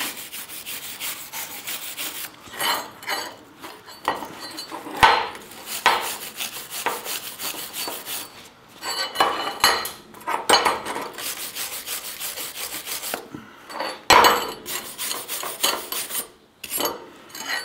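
Hand wire brush with a wooden handle scrubbing a steel bracket's stick weld (7018 rod), in bursts of quick back-and-forth strokes with short pauses, cleaning off slag and spatter after welding.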